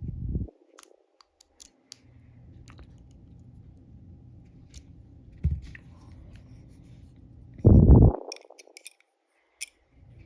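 Faint, scattered metallic clicks and light scrapes of a pick and tension tool working the pins of an Ultion dimple lock cylinder. A few low dull thumps come through as well, the loudest a short rumble about eight seconds in.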